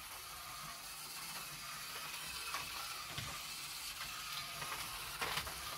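Small battery-powered Motor Tomica toy trucks running round a plastic track: a faint, steady whirring hiss, with a few light clicks.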